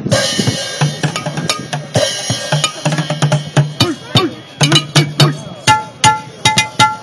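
Junk-percussion drum kit of plastic buckets, trash cans, metal pots and cymbals played with sticks: a fast run of sharp, hard strikes, some ringing with a short clear pitch near the end.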